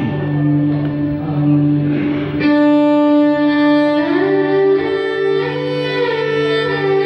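Violin playing a taksim, a free-time Turkish improvisation: long bowed notes held and sustained, with a slide up to a higher note about four seconds in, over a steady low drone.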